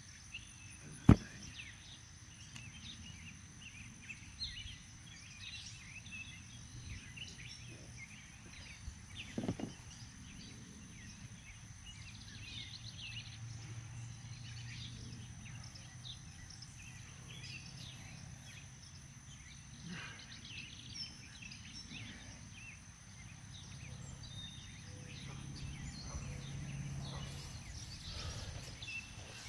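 Outdoor ambience of many small bird and insect chirps over a low hum that swells twice. A single sharp knock about a second in is the loudest sound, with a duller thump near ten seconds.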